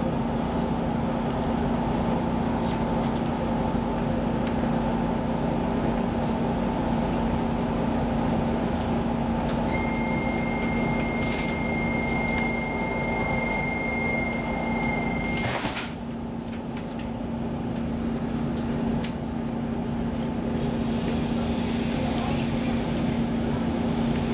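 Inside an X10 electric commuter train: a steady electrical hum, then a high electronic warning tone held for about six seconds. It ends with a sharp thud as the sliding doors shut, after which the surrounding hiss quietens.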